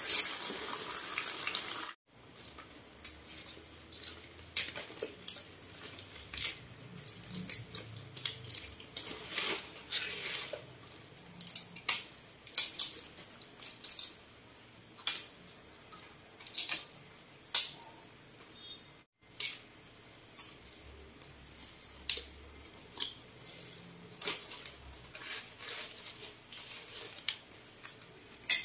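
Running water for the first two seconds, then pandan leaves being handled and broken or cut: a long series of short, crisp snaps and rustles, a few a second.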